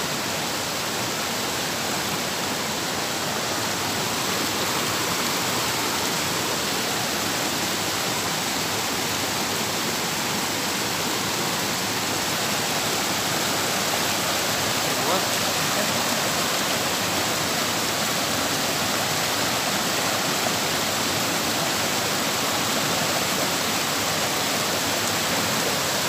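Steady rush of a small forest waterfall: a clear mountain stream cascading over boulders, running full after heavy rain.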